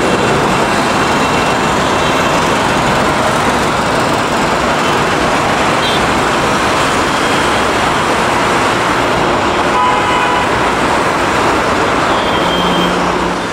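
Loud, steady jet engine noise of an Air India Airbus A321 climbing out at takeoff thrust, with a few faint brief tones above it.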